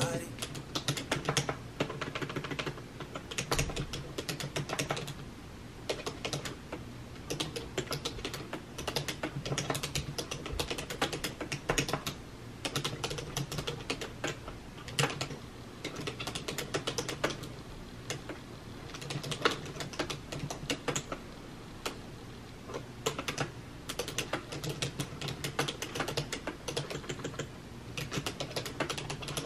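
Typing on a computer keyboard: a steady stream of quick key clicks in uneven bursts with brief pauses.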